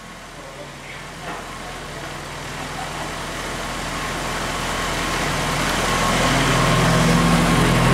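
Honda B20VTEC engine (a B20 block with a VTEC head) in an Acura Integra idling at a steady pitch, growing gradually louder.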